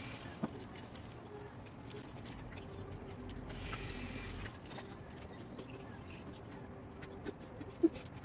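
Quiet room background with a faint steady hum through the middle, a soft click about half a second in, and a short sharp knock near the end.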